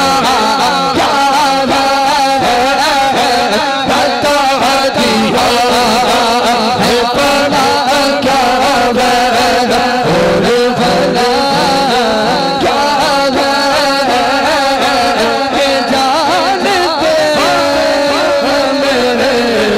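Man singing a naat, an Islamic devotional song, into a microphone, with a wavering, ornamented melodic line; near the end he holds one long note that slowly falls.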